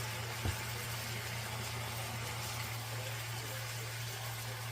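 Cabbage and onions cooking in bacon grease in a pan, a faint steady sizzle over a low constant hum, with one soft knock about half a second in.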